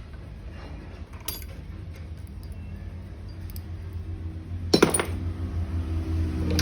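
Metal tools and shock absorber parts clinking on a workbench: a short clink about a second in and a louder clatter near five seconds, over a steady low hum.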